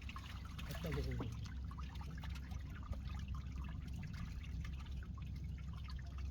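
Water splashing and trickling at the sea surface in many small, irregular splashes, over a steady low rumble.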